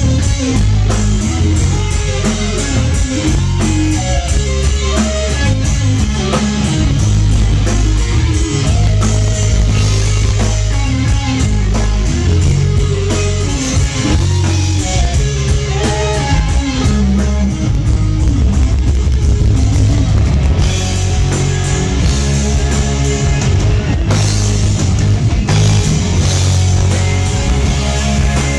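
Live rock band playing an instrumental passage, with electric guitar, bass guitar and drum kit, loud and close to the stage.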